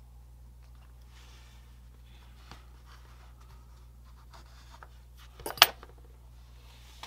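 Faint scratching and rubbing of a metal pick working a tiny photo-etched mesh grille onto a styrene vent box on a wooden workbench, over a low steady hum. A single sharp clack about three-quarters of the way through is the loudest sound.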